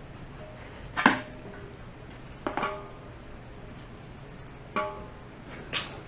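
Metal parts knocking against a metal compressor, four separate sharp clanks, the first the loudest, some with a short ringing tone.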